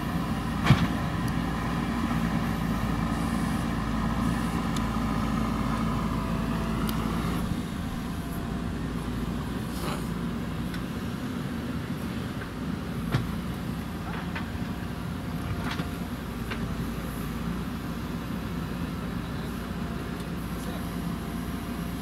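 JCB backhoe loader's diesel engine running under load as the rear backhoe arm digs, louder for the first seven seconds or so, then easing off slightly. There are two sharp knocks, about a second in and again about thirteen seconds in.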